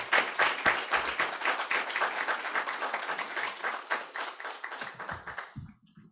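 Audience applauding: many hands clapping in a steady patter, fading out about five and a half seconds in.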